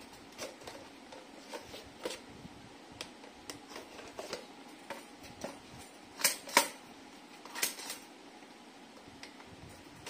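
Clicks and knocks of a red plastic Cello pop-up toaster being handled and turned over, with two sharp, louder clacks a little past six seconds and another pair about a second and a half later.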